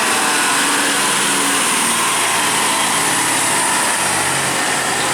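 A vehicle engine running, heard as a loud, steady, noisy drone with no horn tune.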